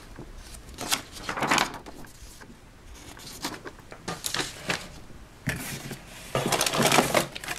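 Cardboard box and plastic packaging rustling and crinkling as toy parts in plastic bags are handled and pulled out, in several irregular bursts.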